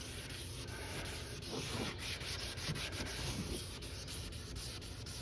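Hand wet sanding of a plastic headlight lens with 600-grit sandpaper on a sanding block: a steady run of back-and-forth rubbing strokes.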